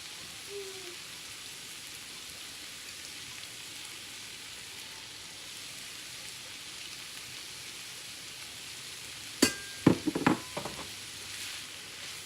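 Seasoned ground beef sizzling steadily in a frying pan. About nine and a half seconds in, a quick run of sharp, ringing knocks and clinks, the loudest sound, as a utensil strikes the pan.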